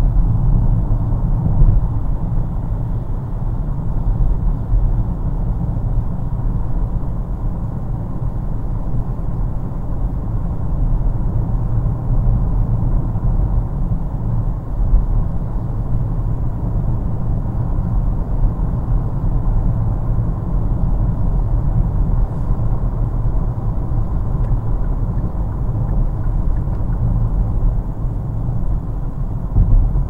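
Steady low rumble of a car being driven: road and engine noise that holds level throughout, with no sharp events.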